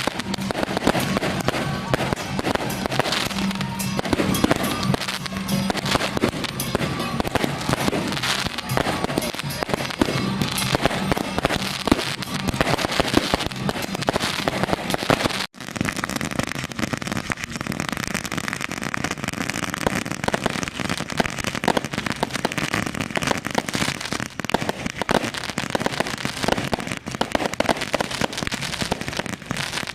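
Strings of firecrackers going off in a dense, continuous crackle, with music sounding behind them; the crackle breaks off abruptly for a moment about halfway through, then carries on.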